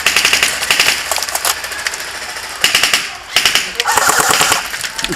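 Airsoft electric gun (ICS M16A3 AEG) firing three full-auto bursts, a rapid clatter of the gearbox cycling, with short pauses between. The gun sounds rough and strained, though by its owner's account it is not failing.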